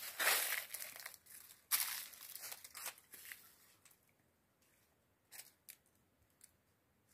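Crinkly rustling of dry plant stems and leaves, in two bursts over the first three seconds, then a couple of faint clicks.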